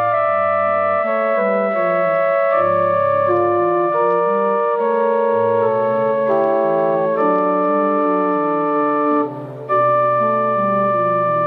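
Pipe organ playing slow music in held, sustained chords, the notes changing every second or so, with a brief drop in level about nine seconds in.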